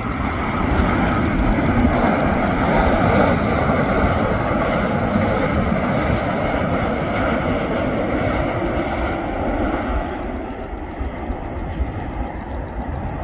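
Jet engine noise from a Boeing 787 Dreamliner airliner on final approach: a steady, loud rumble and roar, growing quieter about ten seconds in as the aircraft comes down to the runway.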